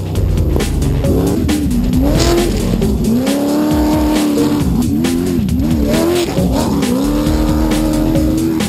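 Desert racing trophy truck engine revving in quick up-and-down surges, then held at steady high revs twice, rising slightly in pitch near the end, over a loud rush of noise.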